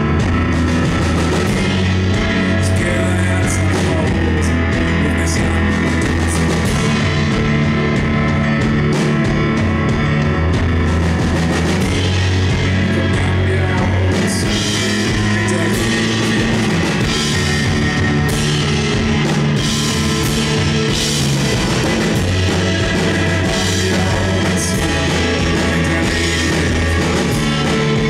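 Live band playing a rock song on electric bass, drum kit and keyboard piano, loud and steady.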